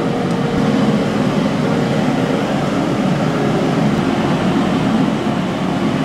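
Steady rushing hum of kitchen equipment, with a faint steady tone during the first couple of seconds.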